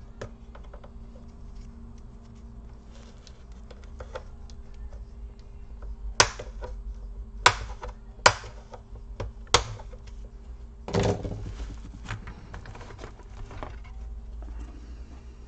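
Plastic snap clips of a laptop's bottom cover popping loose as the cover is pried off: a few sharp clicks spread over several seconds, then a longer clatter about eleven seconds in as the cover comes free.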